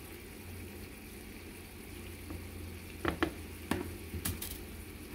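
Kitchen tongs clicking against a pan and plate a few times as noodles are served, about three to four and a half seconds in, over a steady low sizzle from a pan on the stove.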